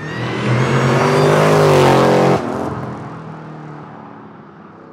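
Supercharged 6.0-litre LY6 V8 of a Holden VF Commodore SSV accelerating hard toward and past the roadside, its pitch rising for about two and a half seconds, then dropping off suddenly and fading as the car drives away.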